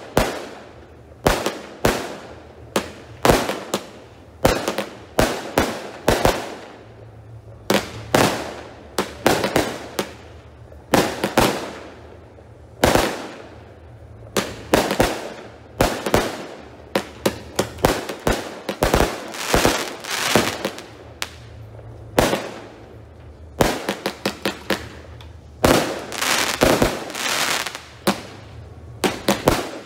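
F2 consumer-category aerial fireworks bursting overhead: a long, irregular run of sharp bangs, some in quick clusters, each fading away after it.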